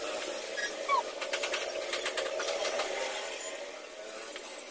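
Sped-up scraping of old adhesive off a phone display panel with a thin metal pick: a quick run of small scratches and clicks about a second in, over a steady hum.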